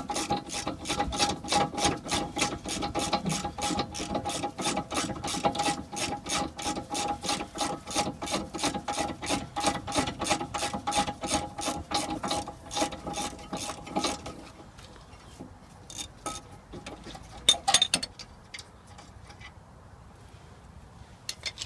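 Hand ratchet clicking steadily, about three or four clicks a second, as the 17mm caliper bracket bolts of a rear disc brake are wound out. It stops partway through, and near the end come a couple of sharp metallic knocks.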